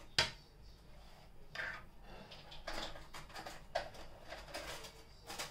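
Plate handling: a sharp knock just after the start, then a few softer scrapes and clinks as chicken and a red plastic portion-control plate are shifted on a ceramic dinner plate.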